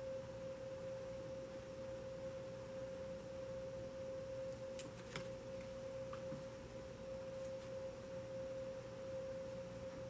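A faint, steady pure tone a little above 500 Hz, unchanging throughout, with a few soft clicks of tarot cards being handled about five seconds in.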